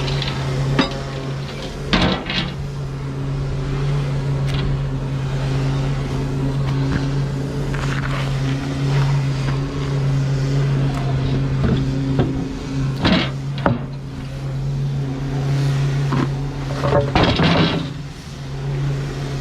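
Heavy truck engine idling with a steady low hum, with a few short knocks and clanks: one a couple of seconds in, two about two-thirds of the way through, and a cluster near the end.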